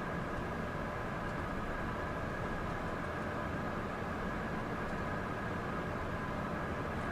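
Steady cockpit noise of a business jet in flight, a constant rush of airflow and engine hum with a few faint steady tones.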